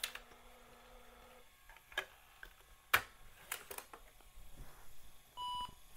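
A few light clicks and taps, then near the end one short electronic beep from the IBM ThinkPad 380XD's speaker during its power-on self-test. The beep comes with the 161/163 error screen, the sign of a dead CMOS battery.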